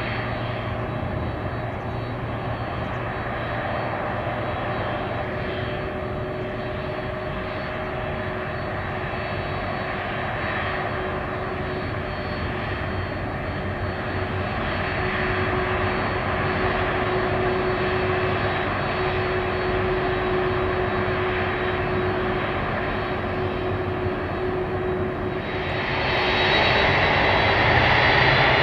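Jet engines of an ANA Boeing 767-300ER airliner running steadily with a whine, then swelling sharply louder about three seconds before the end, with the whine starting to rise in pitch.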